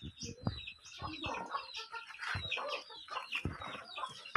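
Chickens clucking with short, repeated calls, and a few dull knocks.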